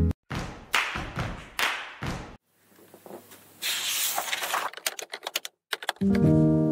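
Pen scratching across paper in several short strokes, then a denser stretch of scratching and a quick run of light ticks about five seconds in. Background guitar music breaks off at the start and comes back near the end.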